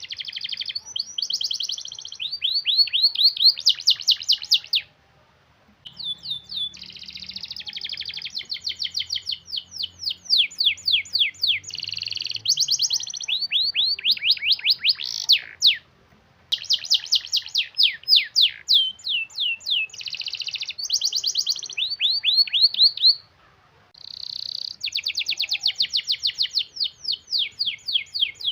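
Canary singing long, tightly packed rolls: runs of very rapid repeated notes, several phrases in a row, with short breaks about 5, 16 and 23 seconds in.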